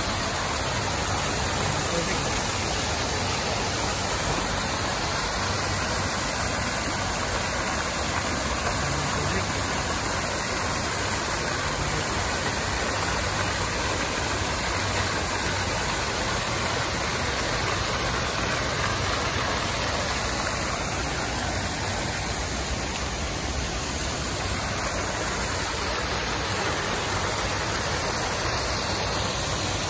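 Water-fountain jets spraying up and splashing down into a pond: a steady rush of falling water.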